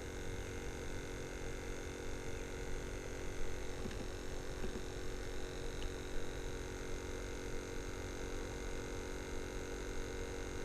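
A steady hum made of several held tones, with a few faint clicks about four to six seconds in.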